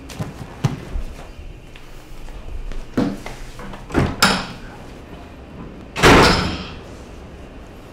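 Footsteps and small knocks, a door handle clicking about four seconds in, then a door shut hard about six seconds in: a loud slam that rings out briefly.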